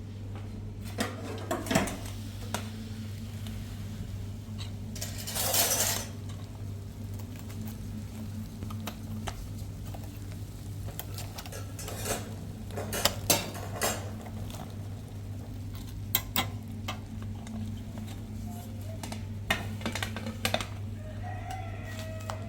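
Dishes and metal utensils clinking and knocking now and then, with one short rushing scrape about five seconds in, over a steady low hum.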